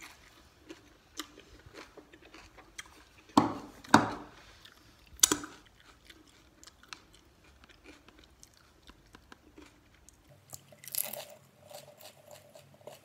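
Close-up chewing of a crisp golgappa (puri shell), many small crunches with three louder bites a few seconds in.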